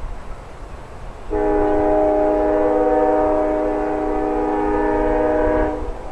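Multi-tone air horn of a CN freight train's lead locomotive, an EMD SD75i, sounding one long steady blast of about four and a half seconds that starts just over a second in and cuts off near the end. A low rumble of wind on the microphone runs underneath.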